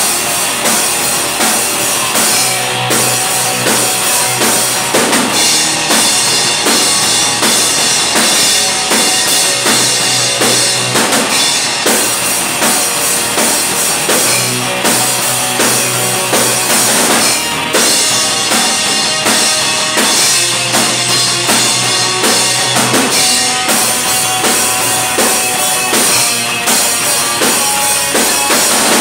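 A live band playing loud: drum kit with kick and snare under electric guitars, one dense, unbroken wall of sound.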